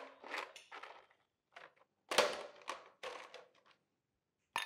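Ice cubes clattering into a glass in several short bursts, with a sharp click near the end.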